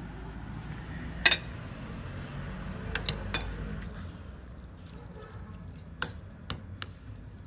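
About seven short, sharp clinks of dishes and utensils, the loudest about a second in, over a steady low background rumble.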